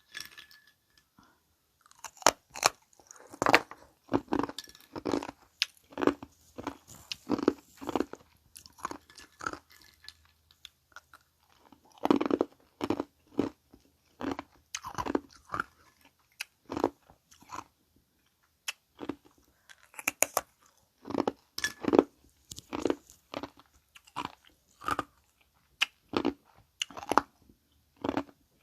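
Ice being bitten and crunched between the teeth close to the microphone, in runs of sharp crunches with short pauses between mouthfuls.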